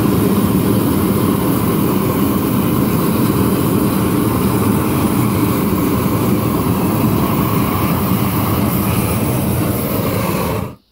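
Long-handled blowtorch of the weed-burner type burning steadily at full flame, a loud, even rush that stops suddenly near the end.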